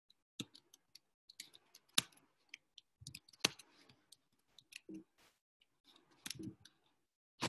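Typing on a computer keyboard: a string of irregular keystroke clicks, a few of them sharper and louder than the rest.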